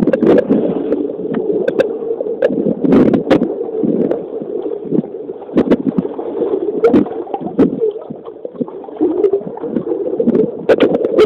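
Muffled underwater sound picked up by a submerged camera: water sloshing and bubbling in a low, uneven rumble, with frequent sharp clicks and knocks.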